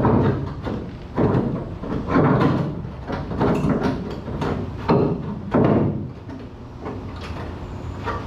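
Irregular clanks and thumps of a steel piece being handled and fitted against a pickup truck bed, about six heavy knocks over the first six seconds, then quieter handling noise.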